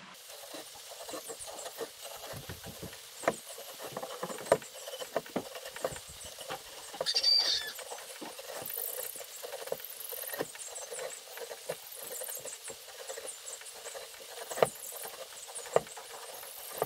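Pencil scratching along a round wooden hiking-stick blank as it is turned on a table, with scattered light taps and knocks of the stick and pencil; two sharper knocks stand out, about four and a half and fourteen and a half seconds in.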